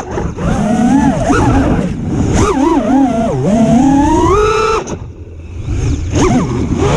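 FPV racing quadcopter's brushless motors and propellers on a 6S battery, whining in pitch that rises and falls with the throttle. About five seconds in the throttle drops and the whine falls away for about a second, then spools back up.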